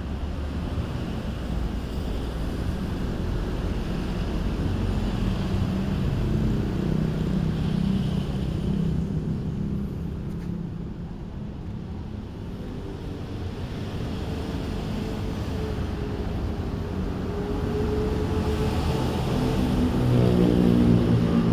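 A motor engine running steadily with a low rumble and some noise, its pitch rising and getting louder near the end as it revs up.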